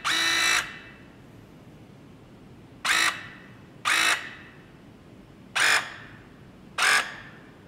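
Battery-powered hydraulic press tool with a 1/2-inch MegaPress jaw, run in five short whirs as the trigger is feathered: the press on a steel pipe fitting is being made in stages, the jaw partly closed while the pipe is held level.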